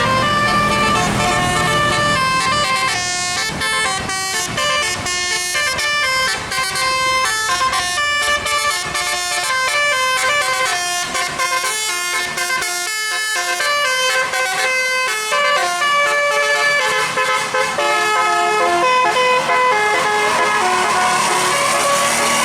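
Bus's musical 'telolet' air horn playing a long melody of quick and held notes.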